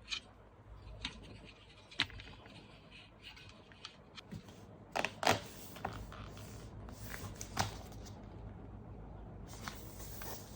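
Hands handling packaging and accessories: scattered sharp clicks and light knocks over a low background hiss, the loudest a quick pair about halfway through and one more about three quarters through.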